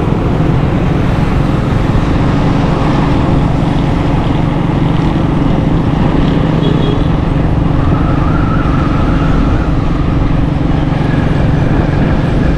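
Steady engine hum and road noise of a moving vehicle, heard from on board while driving, with no pauses or sudden events.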